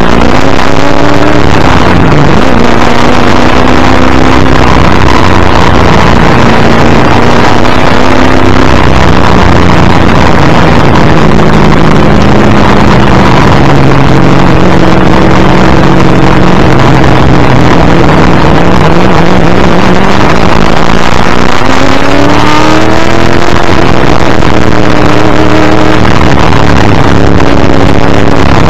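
Ford Falcon XD Group C touring car's V8 under race load, heard from the front bumper through heavy wind and road roar. The engine note climbs and falls with gear changes and corners, with a sharp rise and fall about three quarters of the way through.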